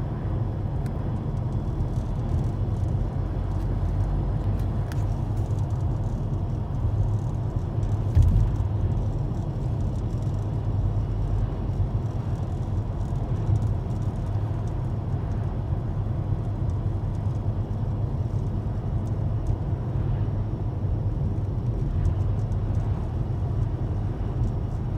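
Steady low rumble of road and engine noise from a car driving along, with a brief low thump about eight seconds in.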